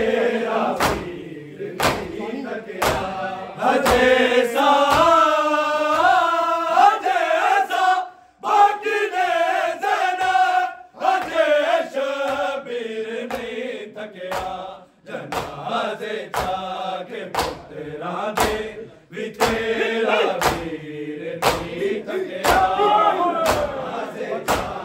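Men's voices chanting a Punjabi noha (mourning lament), over a crowd of men beating their chests with open hands (matam) in a steady beat.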